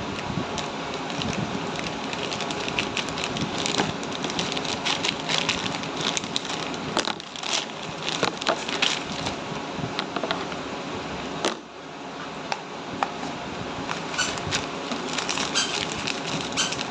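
Plastic packaging crinkling and crackling as it is handled and torn open, with a dense run of small clicks throughout.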